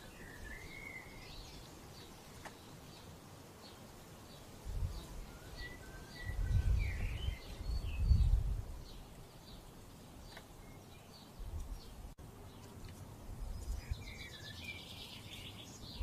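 Small birds chirping and warbling on and off, with a few short low rumbles around the middle, the loudest of them about halfway through.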